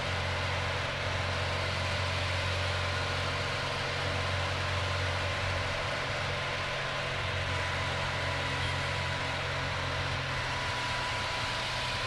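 Steady drone of a 1976 Cessna 182P Skylane's 270-horsepower P.Ponk-upgraded engine and propeller in flight, holding an even pitch throughout.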